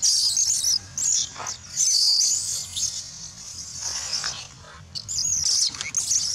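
Baby macaque screaming in shrill, wavering squeals, one after another, with a brief lull about four seconds in: the distress cries of an infant being gripped and dragged hard by an adult female.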